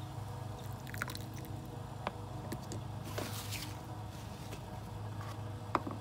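A mesh brewing filter clicking against a ceramic mug as it is handled, a few small clicks, with a short wet swish of liquid about three seconds in. A steady low hum runs underneath.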